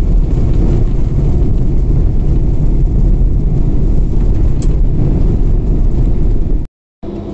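Jet airliner on the runway heard from inside the cabin: a loud, steady, deep rumble of engines and wheels. It cuts off suddenly near the end, giving way to a quieter cabin hum with a steady low tone.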